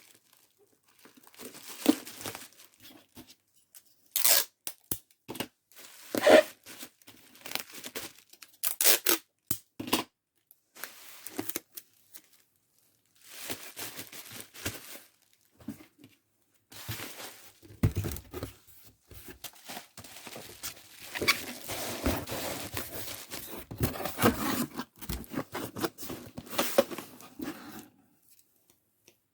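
Packing materials being handled: short, sharp tearing strokes in the first half, then a longer stretch of packing material rustling and crinkling that stops shortly before the end.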